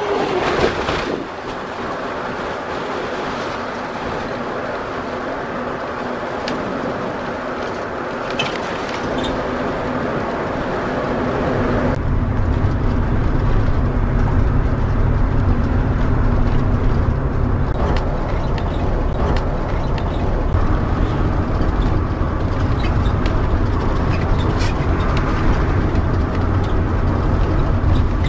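Motorhome driving on a highway: steady engine and road noise heard from inside the cab. About a dozen seconds in, the sound changes to a deeper, heavier rumble that continues steadily.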